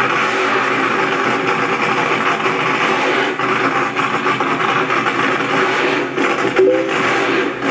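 Drag race car's engine running loudly at the starting line, a dense, steady engine noise.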